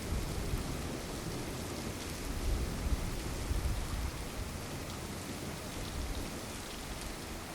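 Steady rain falling, with low rumbles of thunder swelling a couple of seconds in.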